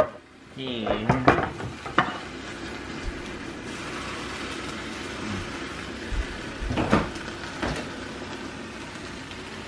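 Kitchen sounds: a steady hiss with a few sharp knocks and clatters, mostly in the first two seconds and again about seven seconds in.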